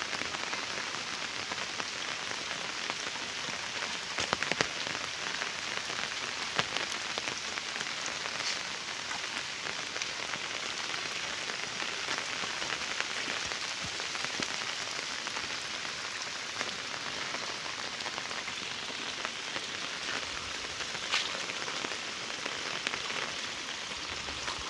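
Steady rain falling on wet ground and a waterlogged road, an even hiss with a few sharp ticks of drops now and then.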